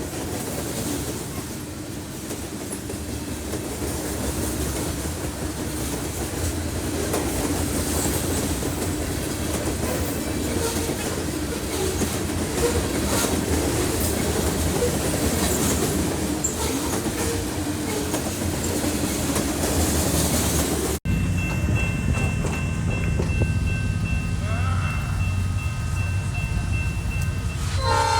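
A train rolling past close by, a steady rush of wheel and rail noise with clattering. About three quarters of the way through it cuts to a deeper locomotive rumble, and a horn starts to blow at the very end.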